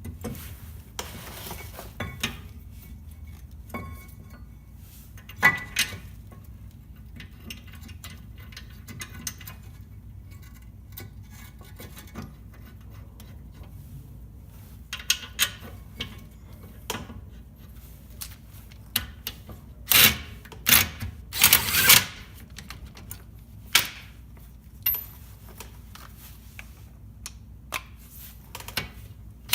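Metal clinks, taps and clatter of a steel brake caliper mounting bracket and hand tools being handled and fitted onto a front brake rotor. A few louder bursts of clatter come about two-thirds of the way through.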